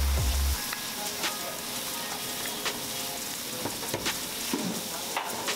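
Beaten egg sizzling on a hot flat iron griddle, with a metal spatula clicking and scraping against the iron several times as the egg is worked and folded.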